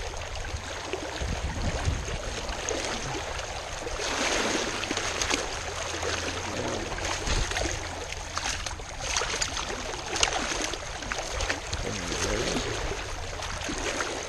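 Rushing water of a fast, high-running trout stream: a steady, full rush, louder for a few seconds at a time.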